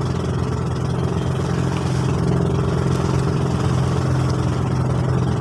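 Outrigger boat's engine running steadily while under way: a constant low drone with an even hiss of water and wind over it.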